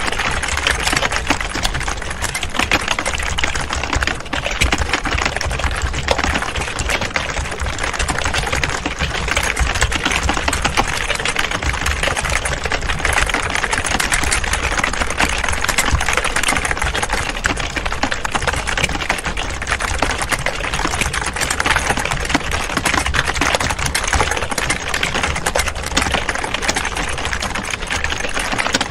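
Many people typing at once on computer keyboards: a dense, steady clatter of overlapping key clicks with no pauses.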